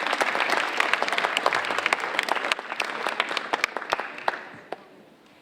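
Audience applauding, a dense patter of many hands clapping that thins out and dies away over the last second or so, leaving a few lone claps.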